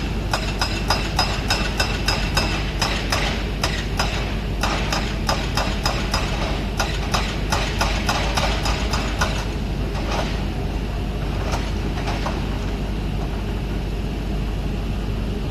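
Heavy construction machinery engine running steadily, with rapid, irregular metallic clanks and ringing over it for the first nine seconds or so, then only a few clanks.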